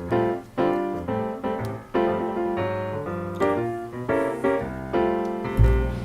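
Piano music, with chords and notes struck in quick succession. A deep bass comes in near the end.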